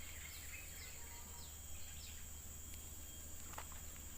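Rural outdoor ambience: a steady high-pitched insect drone with a run of short falling chirps in the first couple of seconds, a single faint click about three and a half seconds in, and a low steady rumble underneath.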